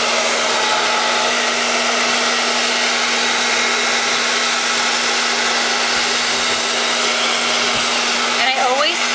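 Handheld hair dryer blowing steadily at close range, with a steady hum from its motor under the rush of air, while a section of hair is dried over a round brush.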